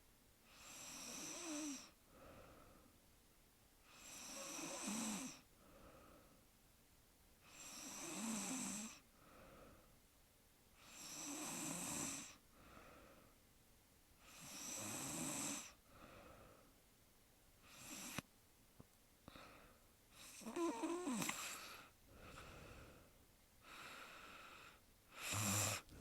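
A sleeping woman snoring: about seven snores, one every three to four seconds, each followed by a softer breath. There is a short click near the middle.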